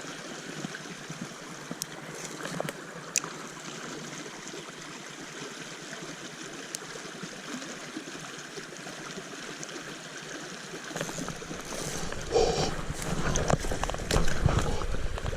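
Small stream flowing and trickling steadily, with a few sharp clicks. About eleven seconds in, a louder low rumble and some knocks join in.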